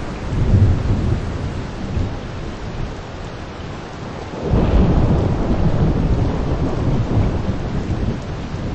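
Steady rain shower with thunder rumbling: a low rumble about half a second in, then a louder roll starting suddenly about four and a half seconds in and slowly dying away.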